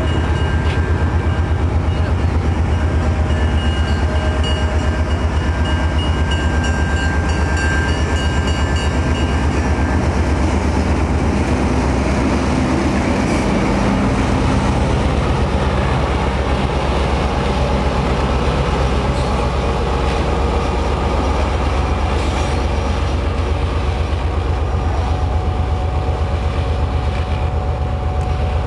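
Passenger train coaches rolling past close by: a steady low rumble of steel wheels on the rails, with a thin high whine over the first ten seconds or so that then dies away.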